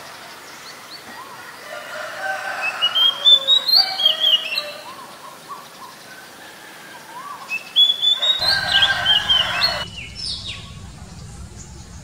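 Oriental magpie-robin singing: two loud bursts of quick, varied whistled notes with rising runs, about two seconds in and again about seven and a half seconds in, then fainter notes.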